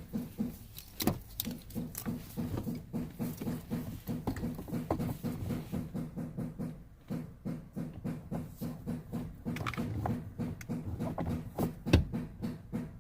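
Fast, even tapping, about four strikes a second, from dent repair work, with a couple of sharper metallic clicks about a second in and near the end.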